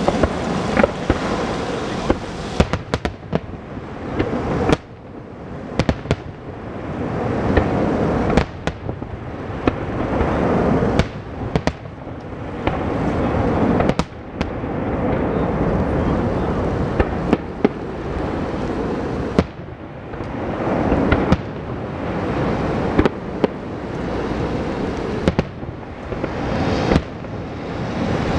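Professional aerial fireworks display: shells bursting with sharp bangs, often several in quick succession, over a continuous rumble and crackle that swells and dies away between salvos.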